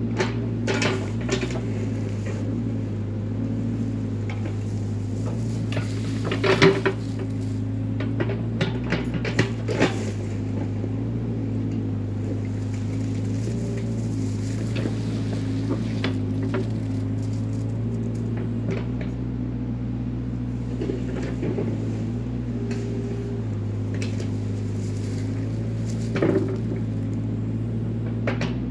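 Mini excavator engine running steadily, with sharp metallic clanks and knocks now and then, loudest about six to seven seconds in.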